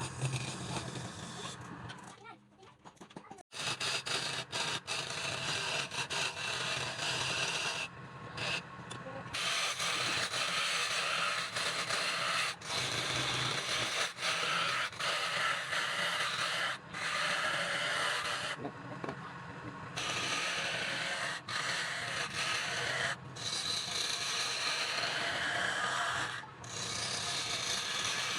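Woodturning on a lathe: a tool or abrasive scraping and rubbing against the spinning wood, a steady rough hiss broken off abruptly several times.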